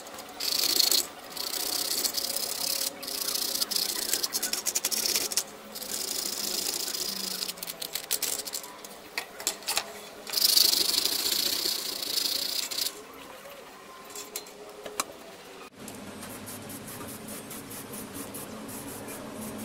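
Sandpaper scrubbing rust off the steel mounting bracket of a TV Yagi antenna by hand, a scratchy hiss in runs of strokes a second or two long, which stop about two-thirds of the way through. After that only a faint steady low hum is left.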